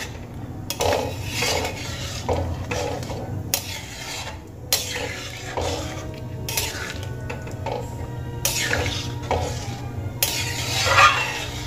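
A metal spatula stirring a thin, watery curry of green peas and potatoes in a metal pan: a run of uneven scrapes against the pan, with the liquid sloshing. The loudest scrape comes near the end.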